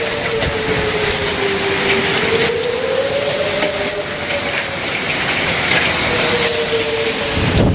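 Outdoor tornado warning siren wailing, its tone slowly rising and falling, over the steady clatter of heavy hail and rain. A clap of thunder breaks in near the end.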